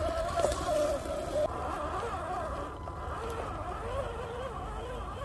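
Axial SCX10 RC crawler's electric motor and drivetrain whining, the pitch wavering up and down as the throttle changes, over a low rumble.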